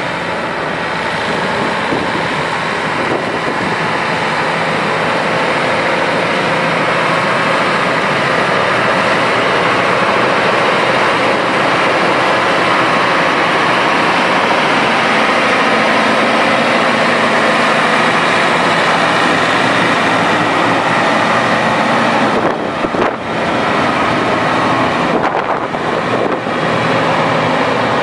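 Cummins M11 10.8-litre six-cylinder turbo diesel of a 1997 New Holland 9482 Versatile 4WD tractor, running steadily as the tractor drives and approaches, growing louder over the first several seconds.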